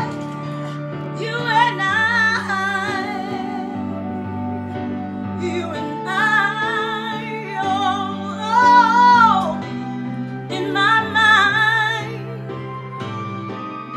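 A woman singing a slow, soulful song with a strong vibrato over an instrumental backing, in several drawn-out phrases with short breaks between them.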